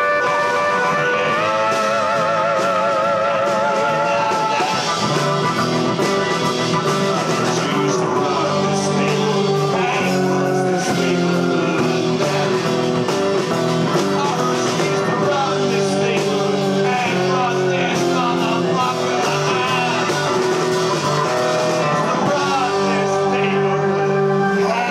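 Live folk-rock band playing an instrumental passage: guitars and a drum kit with cymbals keep a steady beat. A held, wavering note rides over the band for the first few seconds.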